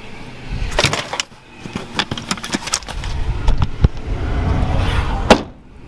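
Handling clatter and clicks around a Nissan 350Z with its rear hatch open, ending in one sharp thud of a body panel shutting about five seconds in.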